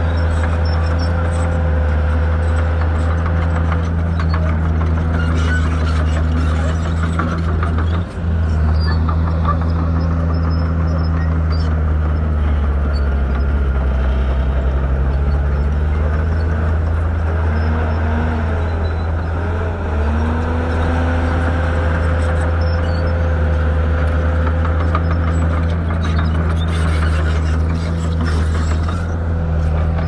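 Bulldozer's heavy diesel engine running hard as a steady deep drone. Its pitch sags about halfway through, recovers, sags briefly again a few seconds later, then climbs back.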